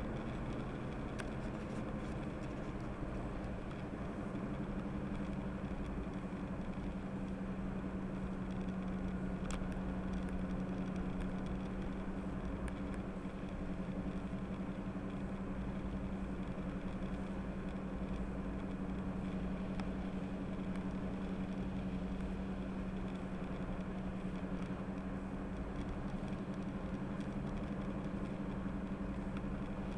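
Car engine and tyres running steadily at road speed, heard from inside the cabin as a constant low drone over road noise.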